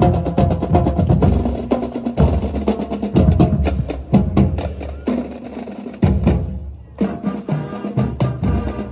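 Percussion-heavy music with quick drumming and rapid clicking beats over strong low notes. It thins out briefly about two-thirds of the way in, then picks up again.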